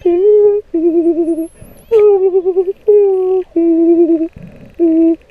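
A person humming a slow tune: about six long notes with short gaps, several of them wavering. A faint high whistle rises and falls about a second in.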